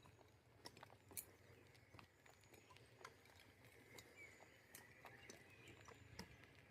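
Near silence: faint outdoor ambience with a scattering of light, irregular clicks.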